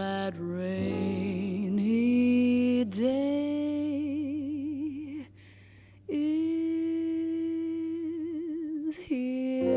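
Slow ballad recording with long held notes, voice or orchestra, sung or played with vibrato. There is a brief near-silent gap about five seconds in, then another long note and a new entry near the end.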